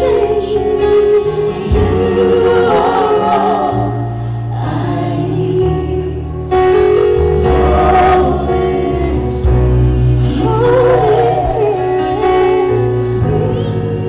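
Mixed vocal group of men and women singing a Christian worship song in harmony through microphones, over held bass notes that change every second or two.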